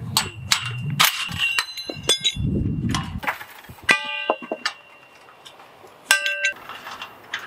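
Loose steel kennel clamp hardware clanking and ringing against the kennel's galvanized steel tubing, with two clear metallic rings about four and six seconds in. In the first three seconds a cordless impact driver runs in short bursts, loosening the clamp bolts.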